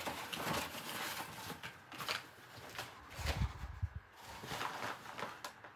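Dachshund rustling and tearing brown kraft packing paper: repeated bursts of crinkling, crackling paper, with a heavier low bumping a little past halfway.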